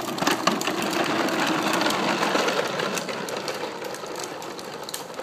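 Hard plastic wheels of a toddler's tricycle rattling and rumbling over paving, a busy run of small clicks that is loudest in the first couple of seconds and fades as the trike rolls away.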